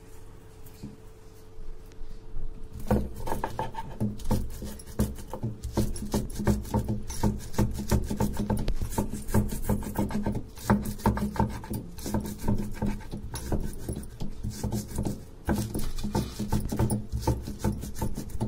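Stone hand pestle (batta) rubbing and knocking on a sil grinding slab, crushing coriander seeds, green chillies, garlic and cumin into a masala paste. The repeated gritty grinding strokes start about three seconds in and go on steadily.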